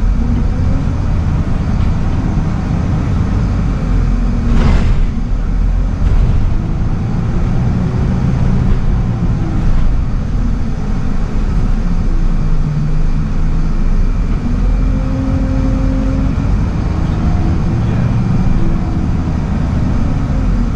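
Scania L94UB/Wright Solar single-deck bus heard from inside the saloon on the move: its 9-litre five-cylinder diesel engine running over a steady road rumble, the engine pitch rising and falling as the bus speeds up and slows. A brief hiss about five seconds in.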